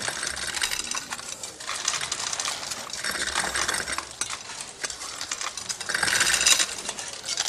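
A spoon chained to a wooden table clinking against a bowl while the steel chain links rattle and scrape on the tabletop. The clatter is busiest about three seconds in and again about six seconds in.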